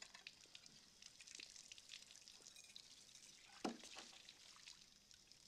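Faint splashing and sloshing of water in a kitchen sink as dishes are washed by hand, with one louder knock about three and a half seconds in.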